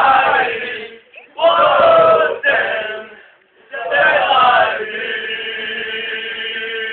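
A group of voices singing together in loud, chant-like phrases with short breaks between them, then holding one long steady note from about five seconds in.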